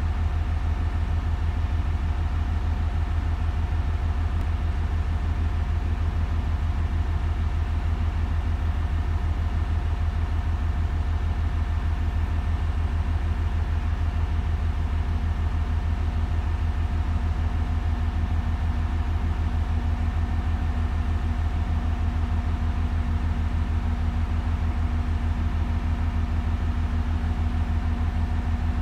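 Steady low hum of a train standing at the station with its machinery running, pulsing rapidly, with a higher steady tone throughout and another tone joining about halfway.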